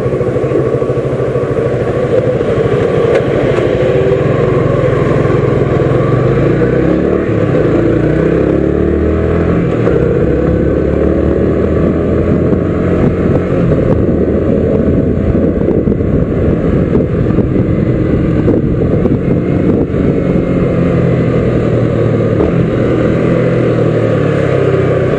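Sport motorcycle's engine running as it is ridden, heard from on the bike. The engine note steps up and down in pitch several times with throttle and gear changes.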